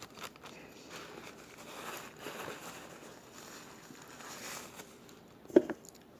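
Close-up eating sounds: faint chewing of a sandwich with soft rustling that swells a few times, then one short voiced sound, like a brief 'mm', near the end.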